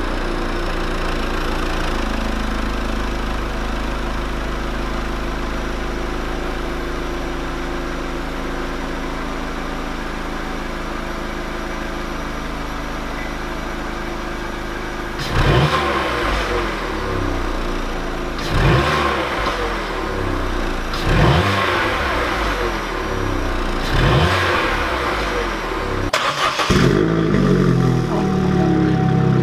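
Vauxhall Corsa 1.4 naturally aspirated four-cylinder petrol engine idling steadily through its stock exhaust just after a cold start, then blipped four times, a few seconds apart. Near the end the same engine runs louder with the rear silencer removed (a Cobra back box delete).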